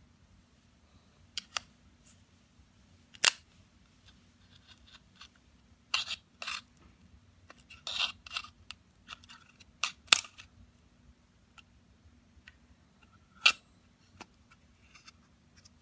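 Irregular sharp clicks and short scrapes of a metal spudger and fingertips working on an opened iPhone's internals, at its connectors and battery. The loudest clicks come about three seconds in, around ten seconds and near the end.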